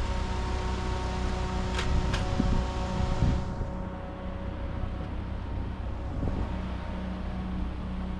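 Steady low hum and rumble of an idling vehicle engine, with two sharp clicks about two seconds in.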